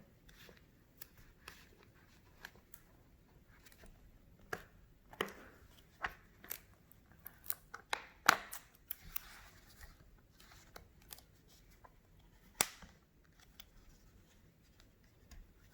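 SUPCASE Unicorn Beetle PRO rugged iPad case being handled and pressed back together around the tablet: scattered small plastic clicks and knocks, with two sharper snaps about eight and twelve and a half seconds in.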